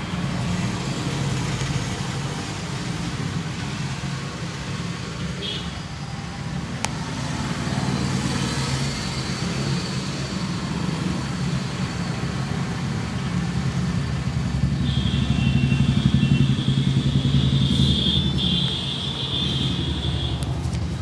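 Street traffic: motor vehicles running and passing as a steady low rumble, which swells for a few seconds past the middle. A single sharp click comes about a third of the way in, and a high steady tone sounds for several seconds near the end.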